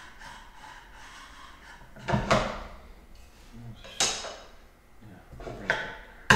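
Wooden pieces knocked and slid on a hardwood workbench top as a planing stop is repositioned and a thin board is laid against it: a short scrape about two seconds in, then sharp wooden knocks about four seconds in and again near the end.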